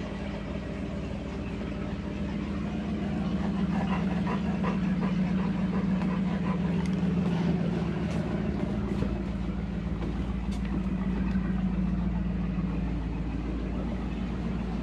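A steady low mechanical hum, like a motor running, with a few light clicks in the middle.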